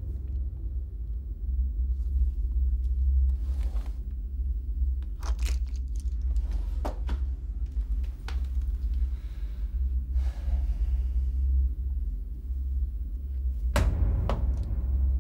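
Darts striking a dartboard: a few short sharp thuds in the middle and a louder one near the end, over a steady low rumble.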